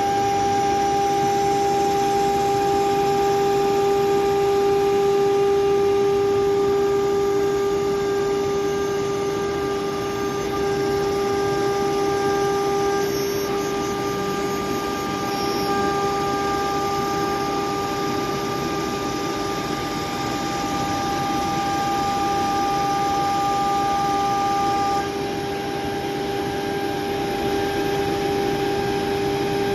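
A CNC router's 9 kW HQD spindle runs at speed with a steady, high whine while its end mill cuts aluminum sheet. A few overtones thin out about 25 seconds in.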